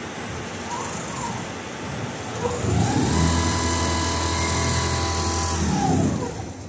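Richpeace automatic sewing machine with a 360° rotating head stitching heavy jacket material: its motors whine up in pitch about two and a half seconds in, run at a steady speed for about three seconds, then wind down near the end.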